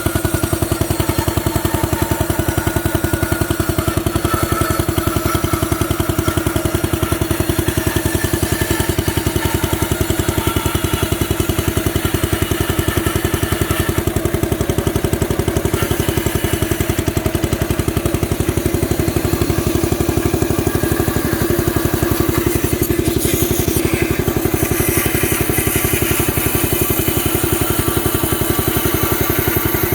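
Briggs & Stratton engine of a 1965 Power King garden tractor running steadily, its rapid firing pulses even throughout, driving a bandsaw through its belt. A harsher, higher hiss joins about 23 seconds in.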